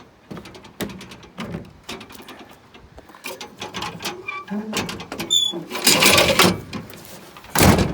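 Irregular knocks, clicks and clatter of objects being handled and moved about, with a few short high squeaks a little past five seconds and louder bursts of clatter around six seconds and again near the end.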